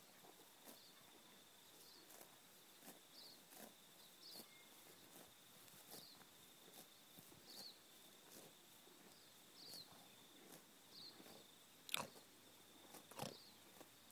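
Near silence: a faint steady high tone and faint short high chirps repeating irregularly every second or so, with two sharp clicks near the end.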